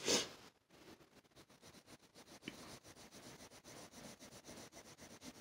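Colored pencil rubbing over paper in quick small strokes, a faint steady scratching. It opens with a brief louder brush as the pencil and hand come down on the sheet.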